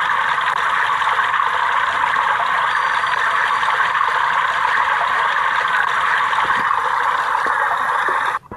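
Steady rush of splashing water from a cartoon fountain sound effect, cutting off suddenly near the end.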